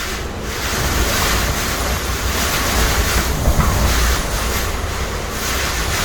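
Typhoon winds gusting with surf crashing, the wind buffeting the microphone into a heavy low rumble. The gust builds about a second in and eases a little near the end.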